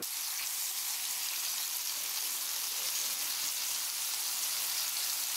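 Cod fillets sizzling in melted butter in an electric skillet, a steady hiss.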